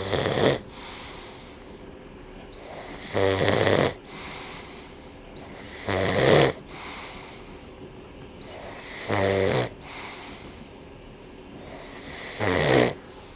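A person snoring in deep sleep. Each breath in is a loud, rasping snore, followed by a hissing breath out. The cycle repeats about every three seconds, five snores in all.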